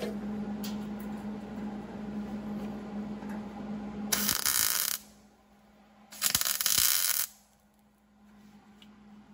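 Power tool work on sheet metal: a motor runs steadily with a hum for about four seconds, then two loud bursts of hissing noise, each about a second long.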